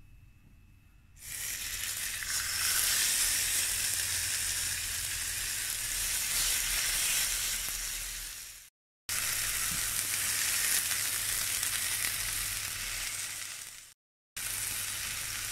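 Fresh cod fillets sizzling in hot olive oil in a non-stick frying pan: the sizzle starts about a second in as the fish goes into the oil, over a low steady hum. The sound breaks off abruptly twice.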